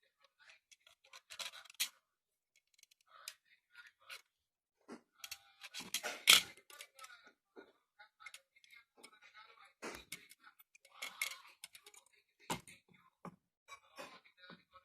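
Irregular clicks, snips and scrapes of small objects being handled, with one louder sharp knock about six seconds in.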